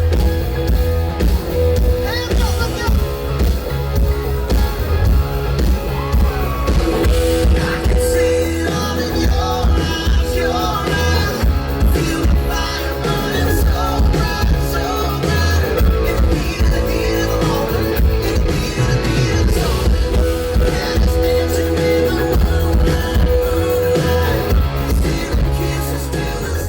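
Rock music with a singing voice and guitar, steady and loud throughout.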